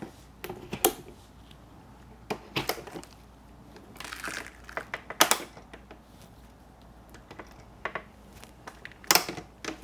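Sliding window being opened and worked by hand: irregular clicks and knocks from its latch and frame, with a short scrape of the sash sliding about four seconds in.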